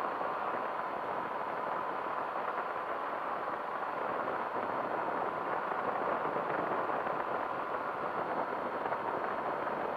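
Powered parachute's engine and pusher propeller running steadily in flight on the descent, a constant drone with a faint steady tone.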